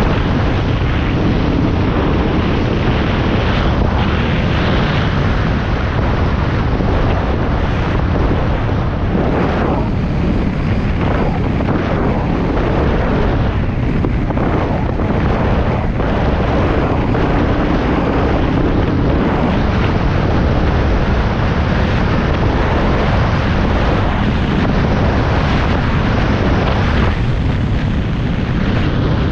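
Vehicle driving on a rough dirt road: a steady, loud low rumble of engine and tyres, mixed with wind noise on the microphone.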